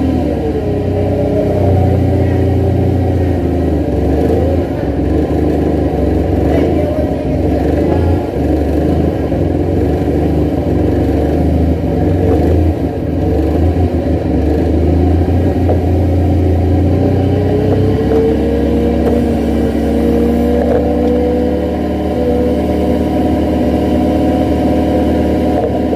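Forklift engine running under load, its pitch slowly rising and falling as it revs while the truck is driven and the lift is worked.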